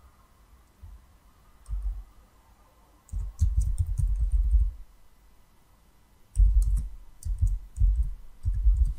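Typing on a computer keyboard: rapid key clicks and knocks in bursts, a short one about two seconds in, then longer runs in the middle and near the end.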